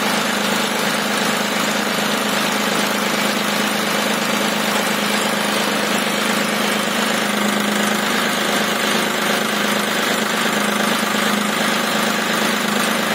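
A John Deere tractor's diesel engine idling steadily.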